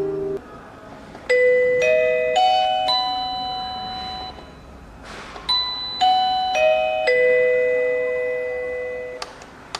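Digital alarm clock ringtone: an electronic doorbell-style chime playing four rising bell-like notes, letting them ring and fade, then four falling notes that fade away in turn.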